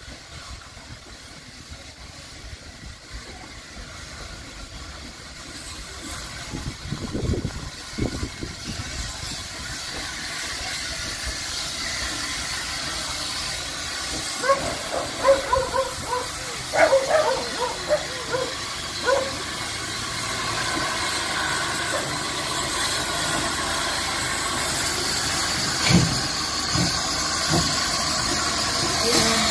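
Polish PKP Class TKp (Śląsk) 0-8-0T steam tank locomotive arriving at a platform, its steam hiss building and growing louder as it draws alongside. A run of short squeals comes about halfway through, and there is a low thump near the end.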